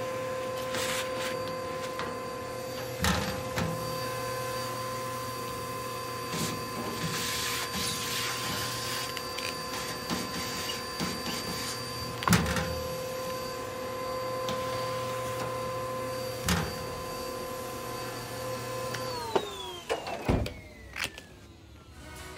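Vacuum cleaner running with a steady whine as its crevice nozzle cleans out a sheet-steel camp wood stove, the nozzle knocking against the steel a few times. About nineteen seconds in the vacuum is switched off and its whine falls in pitch as the motor spins down.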